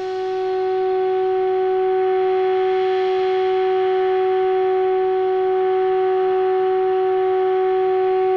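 A steady low test tone with hiss from a NordMende Elektra 58 valve radio's loudspeaker. It swells up over the first second, then holds. The set is receiving the signal generator's modulated 550 kHz test signal as its AM oscillator is being aligned.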